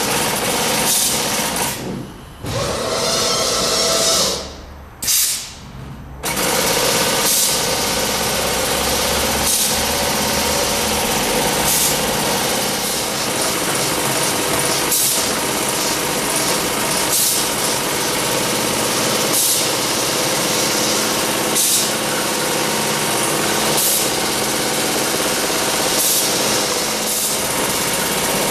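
Robotic carpet-tufting machine with a pneumatic tufting head running, a rapid, dense mechanical chatter as the head punches yarn pile into the backing cloth. The sound cuts out briefly twice a few seconds in, and brief brighter bursts come about every two seconds.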